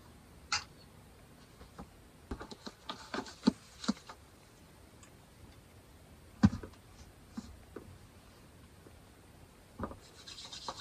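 Handling noise from a desktop condenser microphone being moved and fitted into place: scattered light clicks and taps, with one louder knock about six and a half seconds in.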